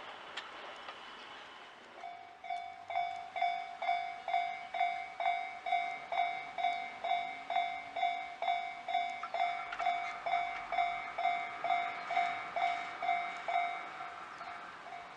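Japanese level-crossing warning bell starts about two seconds in and rings about twice a second, each stroke sharp then dying away. A steady higher tone joins about halfway through, and the strokes grow fainter near the end.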